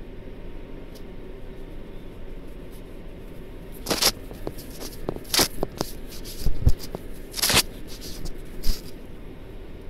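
Handling noise from the phone recording as the dashcam is touched and shifted: a run of rustles, scrapes and a few knocks between about four and nine seconds in, with a couple of dull low thumps partway through. A steady low hum lies underneath.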